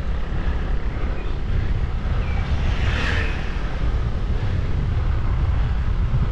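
Wind buffeting a GoPro action camera's microphone during a road-bike ride, a steady low rumble, with a brief louder hiss about three seconds in.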